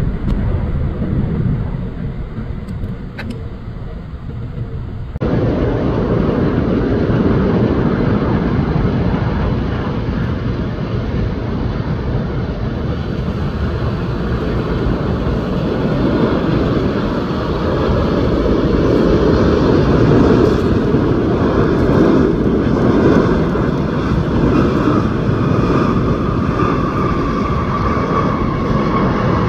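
Jet airliner engines on the runway. A FedEx MD-11 trijet is rolling down the runway, then after a sudden cut a louder, steady engine noise comes from a Korean Air Boeing 747 four-engine jet landing and touching down. An engine whine comes in over it near the end.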